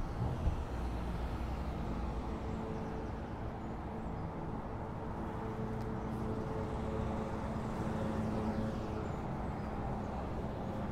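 Street traffic: cars and a van driving past on the road, a steady rumble of engines and tyres on tarmac with a faint hum rising and fading in the middle.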